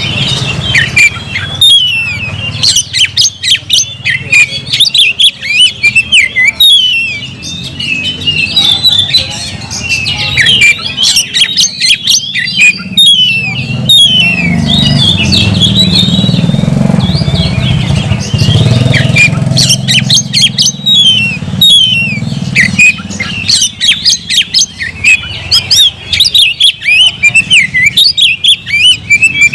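An oriental magpie-robin (kacer) singing loudly and without pause: a fast, varied run of sharp chirps and whistles, the full challenge song a male gives to a rival. A low engine hum runs beneath it through the middle.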